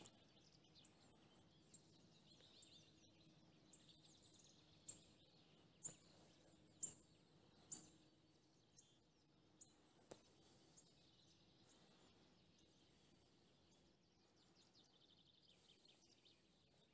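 Near silence of open countryside with faint, scattered bird calls; a few short, sharp chirps stand out between about five and eight seconds in.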